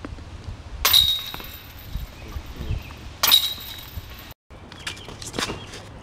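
A disc hitting the metal chains of a disc golf basket twice, about a second in and again about two seconds later, each a sharp crash of jangling chains with a short metallic ring.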